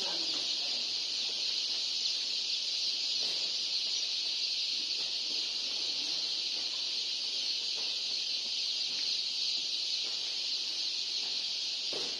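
Many chicks peeping together in their cardboard chick boxes: a dense, high-pitched chorus that runs on without a break.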